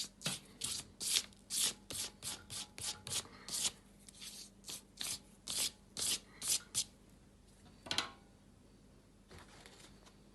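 Short, quick rubbing strokes on paper, about twenty in a row with one more a second later, as acrylic paint is brushed and worked in by hand to build up a wood-grain effect.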